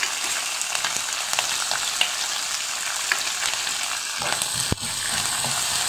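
Hot oil sizzling and crackling in a kadai as crushed green chillies go into a South Indian tempering of mustard seeds, peanuts and dals, with a spoon stirring and scraping the pan. One sharp knock comes about three-quarters of the way through.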